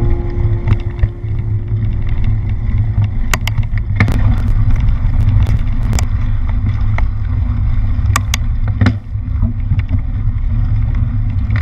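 Mountain bike riding over a rough trail: a loud, steady wind rumble on the microphone with scattered sharp clicks and rattles from the bike.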